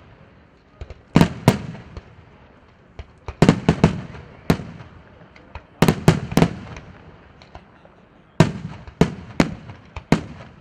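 Aerial fireworks bursting in a night display: loud sharp bangs come in quick clusters of two to four, a few seconds apart, and each one echoes away.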